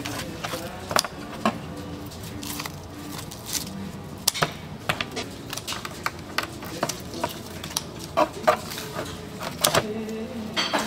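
Irregular sharp clicks and knocks of long metal kitchen scissors and tongs against a tray as a roasted rib rack is handled and cut apart.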